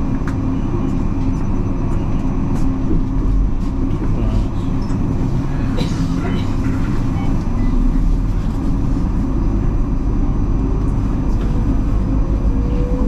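Electric suburban train running on the track, heard from inside the carriage: a steady rumble of wheels on rail with a few faint clicks, and a whine rising in pitch near the end.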